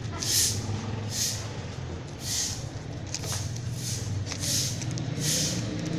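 Pencil eraser rubbing back and forth on lined paper, a short scratchy rub roughly once a second, over a low steady rumble.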